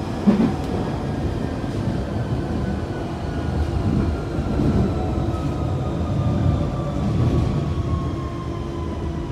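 Inside a London Underground 1992 Tube Stock carriage on the move: a steady rumble of the train running on the track, with a thin whine from the train that falls slowly in pitch.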